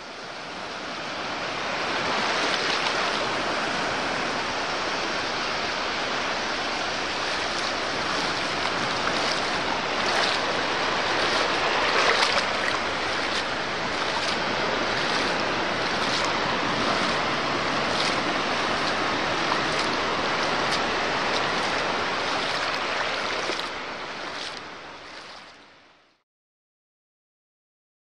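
Sea surf washing onto a sandy beach, a steady rushing wash with small surges. It fades in at the start and fades out a couple of seconds before the end, leaving silence.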